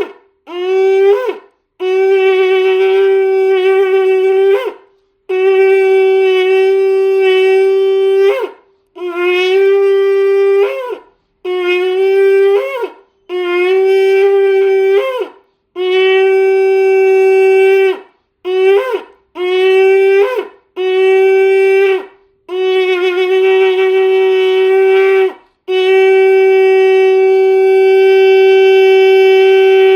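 A shofar sounding a series of separate blasts, some short and some held for a few seconds, each beginning with an upward swoop in pitch before settling on a steady note. The last blast is the longest, held for about five seconds near the end.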